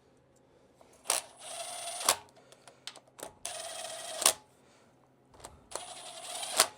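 Handheld power tool running in three short bursts of about a second each, driving down the bolts of the transmission's servo cover, with a sharp click as each burst starts and stops.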